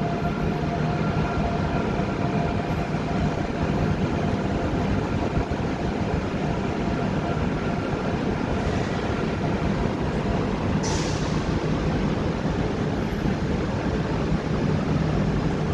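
AVE high-speed train running with a steady rumble, a faint whine fading out in the first couple of seconds and a short hiss about eleven seconds in.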